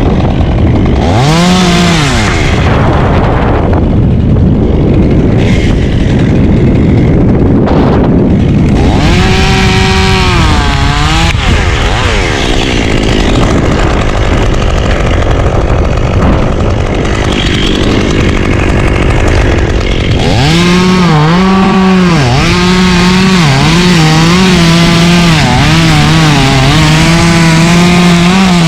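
Two-stroke chainsaw revving and cutting through ponderosa pine limbs, its pitch dipping each time the chain loads in the cut: briefly about a second in, again around ten seconds in, and steadily through the last eight seconds. A loud rushing wind noise on the microphone fills the stretches between cuts.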